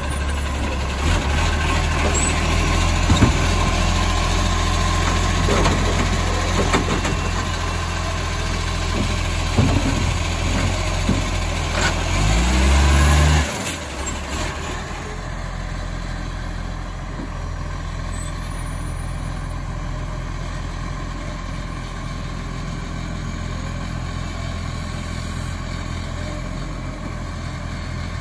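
Automated side-loader garbage truck working its lifting arm on a wheelie bin: the engine runs hard for the hydraulics, with several sharp clunks and knocks as the bin is handled. About halfway through, a rising whine ends in a sudden drop, and the truck settles to a steadier, quieter engine run.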